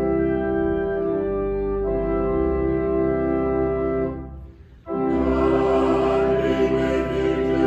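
Church organ playing held chords over a low pedal bass. It breaks off about four seconds in and comes back just under a second later, fuller and brighter.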